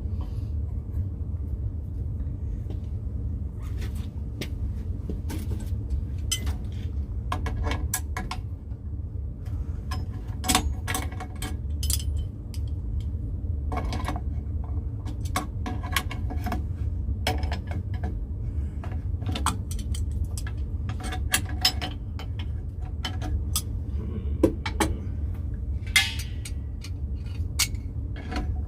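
Metal tools and fittings clinking and clicking over and over as a well pressure switch is worked loose from its threaded fitting on the water line, with a steady low hum underneath.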